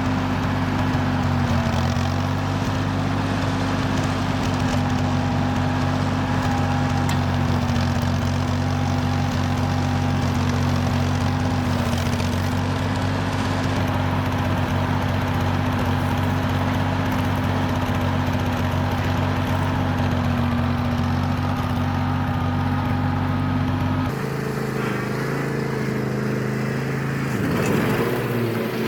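An engine running steadily, its note changing to a different pitch near the end.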